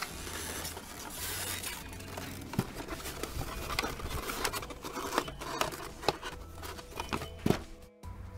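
A plastic toy fire engine being handled in its polystyrene packaging insert: scattered clicks, knocks and rustling as it is worked loose. The sound drops out briefly near the end.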